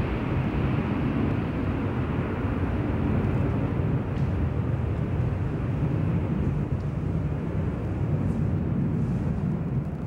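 Steady low rumble and hiss of background noise, even throughout, with no distinct events.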